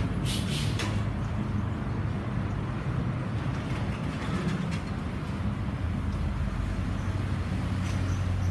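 A vehicle engine idling with a steady low hum. A few short hissing sounds come in the first second.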